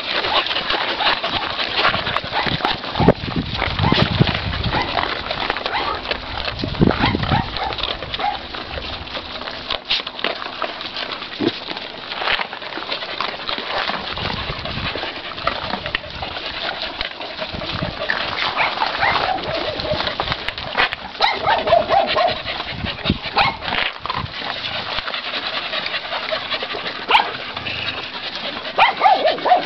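A group of dogs feeding from bowls of dry kibble: a dense run of crunching and clicks from food and bowls, with a few short dog whines among it, mostly in the second half.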